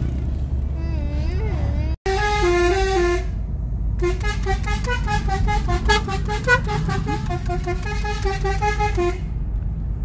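Basuri multi-tone 'telolet' bus horn fitted to a car, playing a tune in quick stepped notes: a short phrase about two seconds in, then a longer, faster run from about four to nine seconds. A steady low rumble of the moving car runs underneath.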